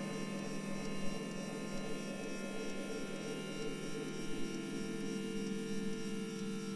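Ambient electronic music: a steady synthesizer drone of several held tones, with a new low note coming in near the end.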